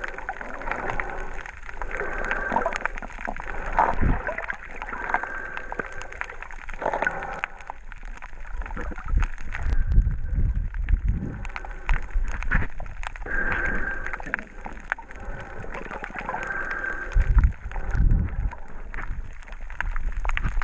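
Muffled underwater sound picked up by a camera in its housing: water movement and bubbling, with a short hiss that comes back every few seconds and a few louder low rumbles.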